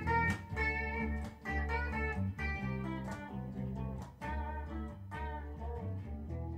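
Instrumental guitar music: a run of plucked guitar notes over a steady bass line, with no singing, easing slightly quieter towards the end.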